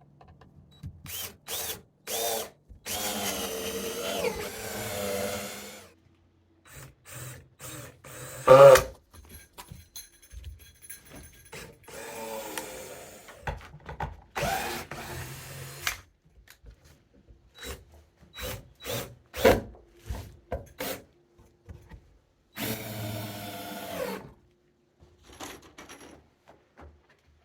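Power drill running in about four bursts of a few seconds each, its pitch dipping and rising under load as it works into wood, with short clicks and knocks from parts being handled in between.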